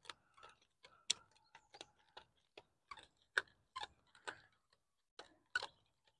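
Faint, irregular clicks and ticks as fishing line is wound by hand onto a plastic water bottle used as an improvised hand reel.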